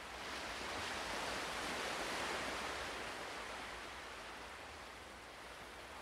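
Ocean surf: a single wave surges in, swelling to a peak about two seconds in, then slowly washes back out.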